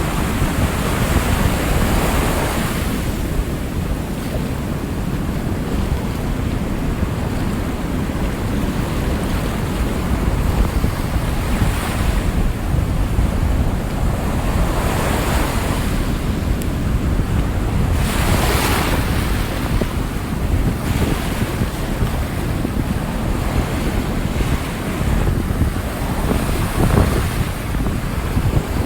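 Rough Atlantic surf: waves breaking over and over with a constant low rumble, several crashes standing out, and wind buffeting the microphone.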